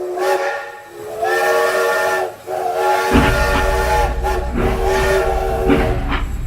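Steam-locomotive whistle sounding several long chime-like blasts, with a steady low rumble of a running train joining about three seconds in.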